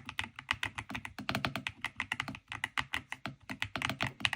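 Fast typing on an XVX M75 mechanical keyboard with creamy linear switches: a quick, continuous run of keystroke clicks.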